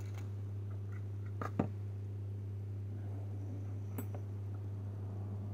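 Steady low electrical hum with a few light clicks and taps of hand tools and small metal parts being handled, the sharpest about a second and a half in and another near four seconds as a screwdriver goes onto a screw.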